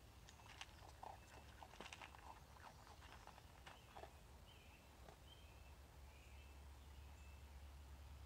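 Faint clicks and taps of a raccoon feeding from a plastic tub on a wooden deck: chewing, and the tub and claws knocking. They come irregularly over the first few seconds, then thin out.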